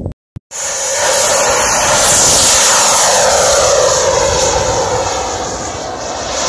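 Radio-controlled Avanti model jet making a fast pass, its jet whine and rush cutting in about half a second in and loudest around two seconds in. The sound then falls in pitch and fades as the jet climbs away.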